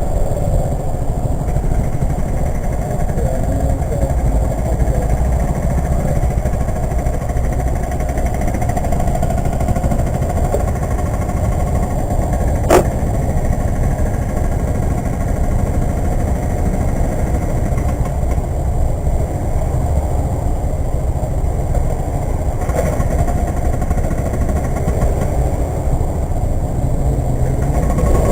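KTM RC 125's single-cylinder 125 cc engine running on a ride, heard as a steady, loud low rumble, with one sharp click about halfway through.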